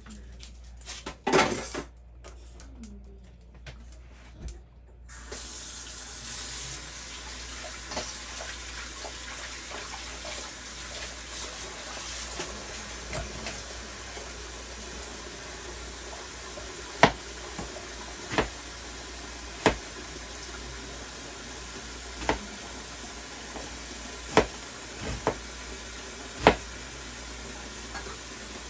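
Chef's knife chopping an onion on a plastic cutting board: sharp knocks of the blade on the board every second or two in the second half, over a steady hiss that starts about five seconds in. A single knock sounds about a second in.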